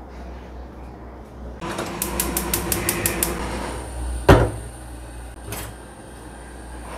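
A gas stove burner being lit: a run of rapid igniter clicks, about seven in a second and a half, then one sharp knock, the loudest sound, about a second later.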